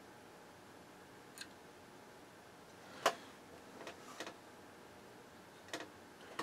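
Scattered small clicks and taps of hand tools being handled during a fine trim adjustment. There are about six, the loudest about three seconds in, over a faint steady hiss.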